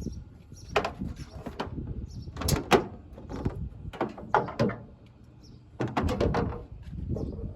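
A string of clicks and knocks from things being handled, the loudest about two and a half seconds in.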